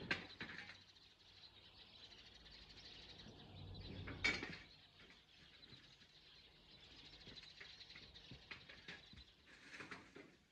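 Quiet outdoor ambience with faint bird chirping, broken by two sharp knocks, one at the start and a louder one about four seconds in.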